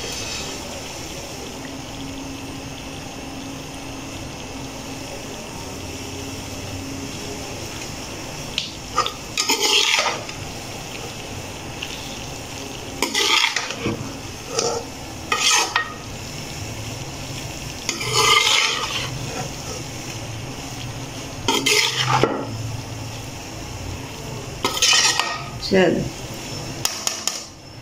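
Slotted metal spatula stirring and scraping potato-and-cauliflower curry (aloo gobi) around a metal pan, a scrape every three seconds or so from about nine seconds in. A steady sizzle from the pan sits underneath.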